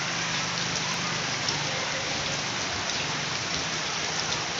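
Heavy rain falling steadily on a wet paved yard, an even unbroken hiss of rain.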